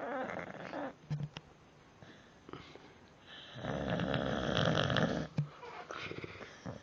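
Staffordshire bull terrier snoring in its sleep: a short snore at the start, a longer, louder snore in the middle, then softer breathing noises.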